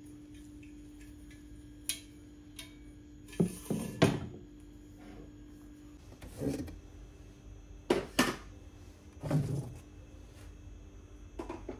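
Scattered knocks and clatters of kitchenware being handled, loudest in a cluster about four seconds in. A low steady hum underlies the first half and stops about six seconds in.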